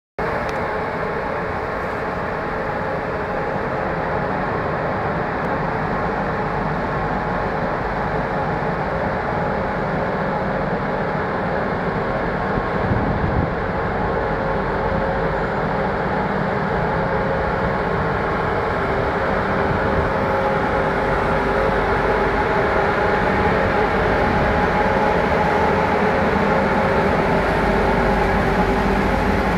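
ASEA-design class 441 electric locomotive running with a steady drone and a few held tones, growing slightly louder toward the end.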